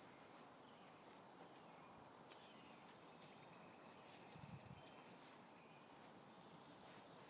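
Near silence: faint outdoor ambience with a few faint, short high chirps and a soft low thump about four and a half seconds in.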